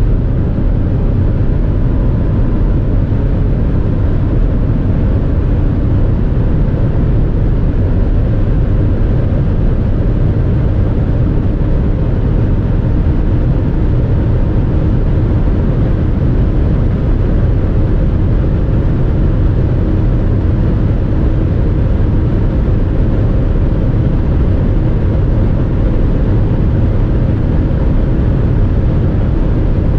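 Steady drone of a BMW X6 xDrive45e plug-in hybrid heard from inside the cabin near its top speed: engine, tyre and wind noise, held in sixth gear as the car creeps from about 200 to nearly 250 km/h.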